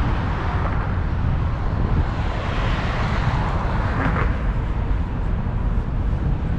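Steady outdoor city background noise with a constant low rumble and no distinct events.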